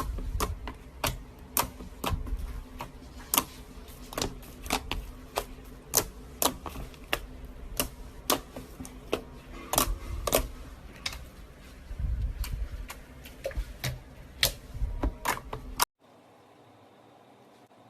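Slime being squeezed and kneaded by hand, making loud, irregular popping clicks as air pockets burst, two or three a second. The clicking cuts off abruptly near the end, leaving only a faint hiss.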